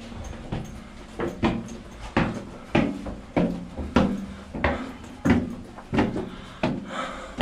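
A steady series of knocks or thuds, about three every two seconds, each sharp at the start and dying away quickly.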